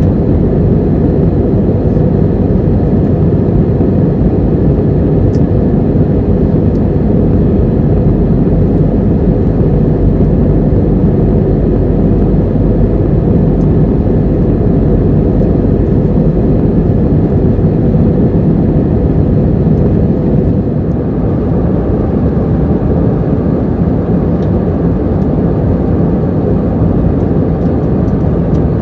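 Airbus A320neo airliner heard from inside the cabin behind the wing: a steady, loud drone of the jet engines and rushing air during the climb-out. About two-thirds in, the noise drops slightly and stays a little lower.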